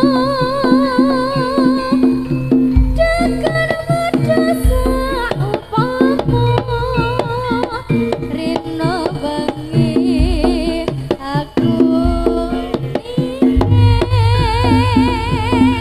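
Javanese jaranan music: hand-drum strokes under a melody line that wavers with vibrato and a deep sustained bass.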